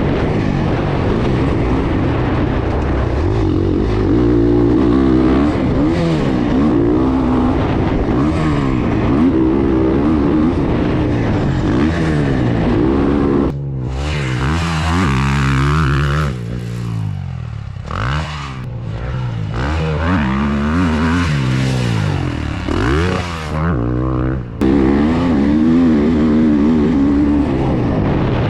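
Gas Gas 450F four-stroke single-cylinder dirt bike engine being ridden hard, revving up and falling back over and over as the throttle opens and closes. From about halfway through, for some ten seconds, the engine drops lower and a rushing hiss stands out over it.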